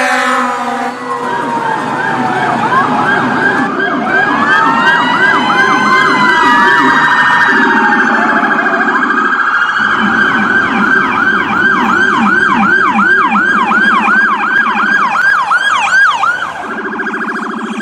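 Electronic emergency-vehicle sirens sounding together in several overlapping tones, shifting from slow rising-and-falling wails to a fast yelp that sweeps about twice a second, over a lower pulsing tone.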